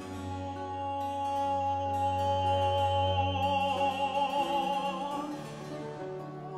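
Tenor singing a slow, sustained line with vibrato in a 17th-century English continuo song, accompanied by viola da gamba, lute and harpsichord. The bass note changes a little after four seconds in.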